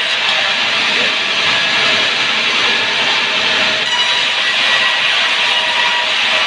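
Sawmill saw cutting steadily through a sengon log, a loud continuous grinding of blade in wood.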